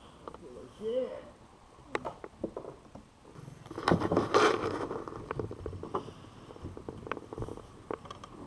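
Scattered clicks and knocks of fishing gear being handled in a small boat, with a louder noisy rush lasting about a second and a half, starting some three and a half seconds in.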